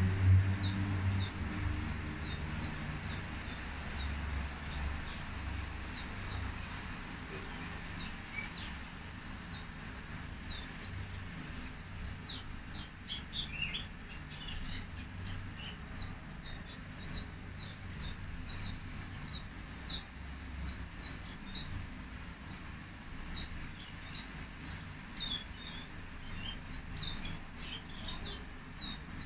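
Caged white-eye (mata putih) singing: a run of short, thin, high chirping notes, most of them falling quickly in pitch, that come thicker and faster from about ten seconds in.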